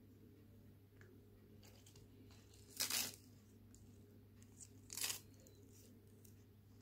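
Crisp lettuce leaves torn by hand: two short ripping crunches about two seconds apart, with a few faint small ticks and rustles between.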